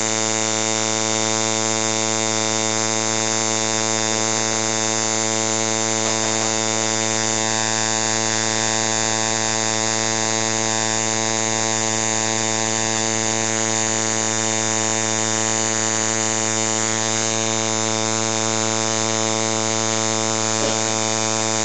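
Electric tattoo machine buzzing steadily at one constant pitch, powered continuously through its foot pedal.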